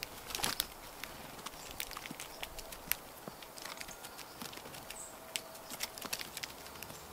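Scattered light ticks and crackles, several a second, of blue jays and common grackles hopping, scratching and pecking in dry leaf litter and on dead wood.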